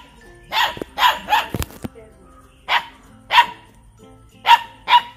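Puppies barking: about seven short, sharp barks spread through, with a pause in the middle.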